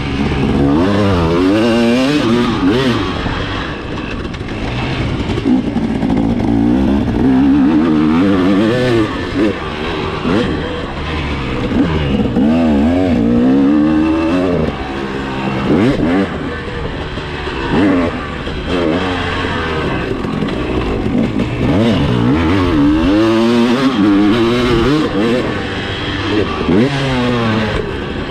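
Motocross bike engine being ridden hard around a dirt track, its pitch rising sharply on each burst of throttle and falling back as the rider shifts or rolls off, over and over.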